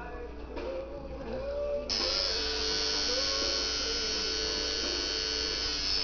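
Coil tattoo machine buzzing steadily as it drives the needle, switching back on about two seconds in after a short pause.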